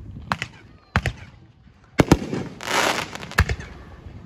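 Fireworks going off: about five sharp bangs spread over a few seconds, with a stretch of crackling a little past the middle.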